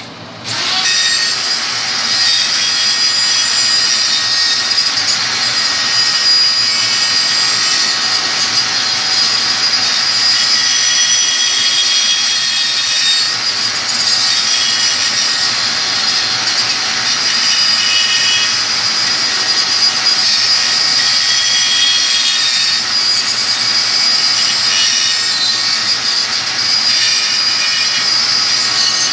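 Rotary tool on a flexible shaft starting up about half a second in with a rising whine, then running steadily with a high whine as its diamond cut-off wheel grinds, water-cooled, into the rim of a fused-glass drop vessel.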